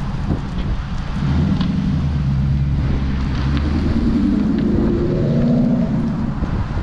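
2016 Ford Mustang GT's 5.0 V8 with a Roush cat-back exhaust pulling under acceleration, the revs climbing steadily for about four seconds, then dropping near the end.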